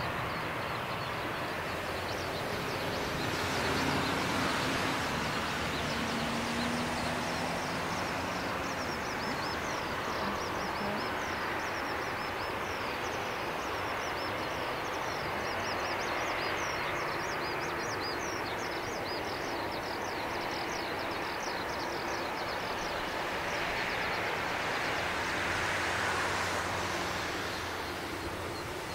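The four CFM56 turbofans of an Airbus A340-300 running at taxi thrust as the airliner rolls along the taxiway: a steady jet rush and whine that swells a little about four seconds in and again near the end.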